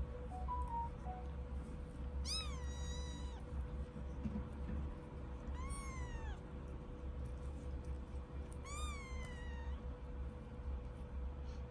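British shorthair kitten meowing three times, high-pitched meows that each rise and then fall away, over a low steady hum.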